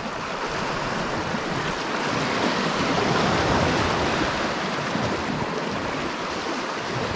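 Sea waves washing against shoreline rocks: a steady rushing noise that swells a little around the middle.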